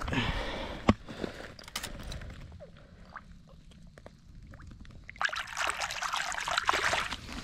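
Water splashing and sloshing in shallow water as a small carp is released by hand. Softer lapping at first, then a loud burst of splashing for about two seconds near the end as the fish is let go.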